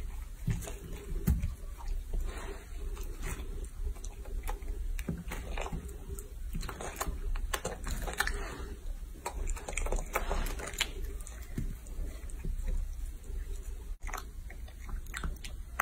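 A monkey chewing a steamed bun, making irregular wet smacking and munching clicks over a low steady background hum.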